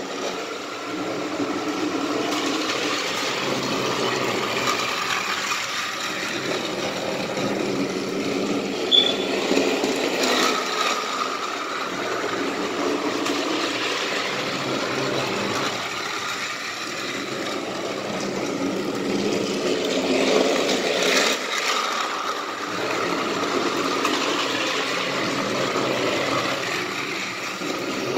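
Thomas & Friends motorized Kenji toy bullet train running along plastic track, its small battery-powered motor whirring steadily.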